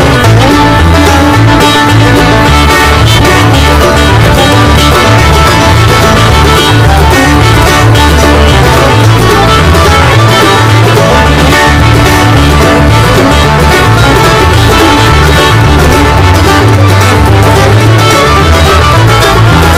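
Loud instrumental background music with a steady, strong bass line.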